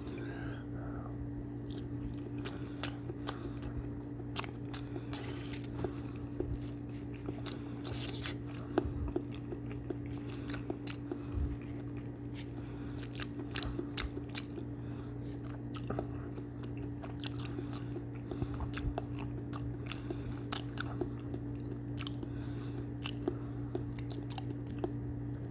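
A person chewing and biting food close to the microphone, with scattered small clicks and crunches, over a steady low hum.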